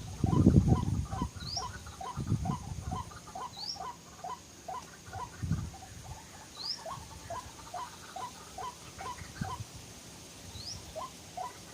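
White-breasted waterhen calling: a steady run of short repeated notes, about three to four a second, with a higher rising chirp every second and a half or so. A few loud low rumbling bursts in the first three seconds and again about five and a half seconds in.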